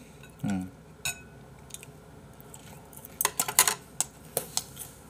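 Eating utensils clicking and tapping against a bowl in quick irregular clusters, with a short falling grunt from the person eating about half a second in.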